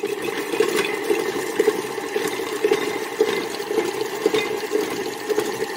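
Stand mixer running steadily, its flat beater turning almond cream in a metal bowl.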